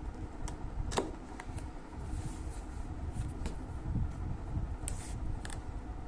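A cardboard product box being opened by hand: rustling and scraping of cardboard with scattered clicks, the sharpest about a second in.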